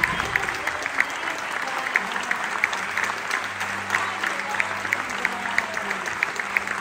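Theatre audience applauding steadily: a dense mass of many hands clapping.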